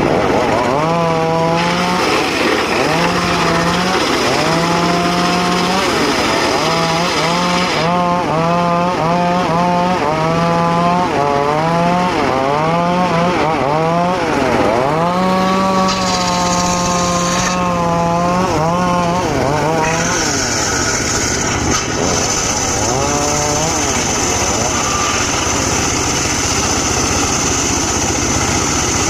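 Portable circular sawmill cutting a teak log. Its pitch repeatedly dips and recovers as the blade loads and frees in the cut, then a steady high whine sets in from about twenty seconds in.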